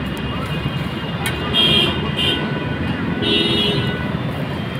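Busy street traffic rumbling steadily, with vehicle horns honking three times, the last honk longer.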